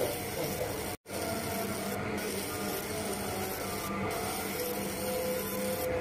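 Laser marking machine running as it engraves numbers on bird leg rings: a steady hiss with a faint low hum. The sound drops out to silence for a moment about a second in.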